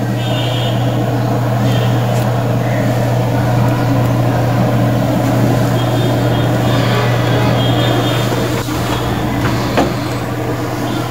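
Steady low mechanical hum with a droning pitch, joined late on by two light clicks, typical of the plastic router being handled.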